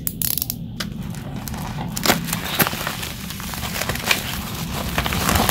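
Plastic bubble mailer crinkling and crackling as it is handled and pulled open, with scattered sharp crackles through a steady rustle.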